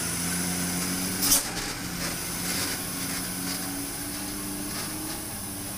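Mitsubishi Fuso truck's diesel engine running at low revs under a heavy load as it creeps down a steep descent, its note wavering slightly. A brief sharp hiss cuts in about a second in.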